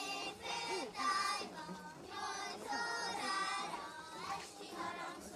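A group of children singing a Hungarian folk song together in phrases about a second long.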